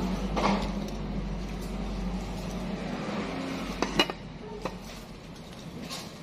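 A low rumble that fades out over the first three seconds, then a few light clinks of tableware about four seconds in.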